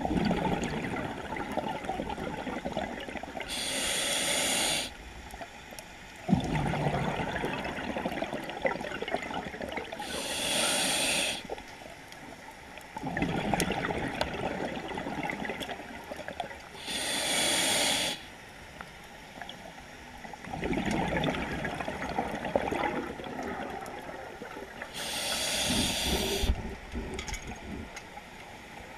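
Scuba diver breathing through a regulator underwater: four slow breath cycles, each a hissing inhale of about a second followed by a longer bubbling, crackling rush of exhaled air.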